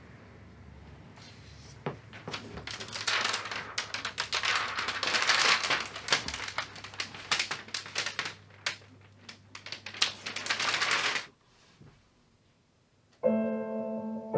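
Clear protective plastic film being peeled off a TV screen, crackling and crinkling for about nine seconds. It stops suddenly, and after a short pause piano music begins near the end.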